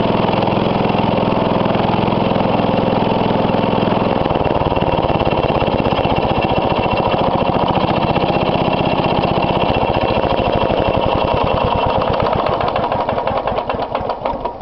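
The 5 hp Briggs & Stratton engine of a Hayterette rotary lawn mower running. About four seconds in it settles to a slower speed with distinct firing beats. Near the end it dies away, the beats slowing as it runs down.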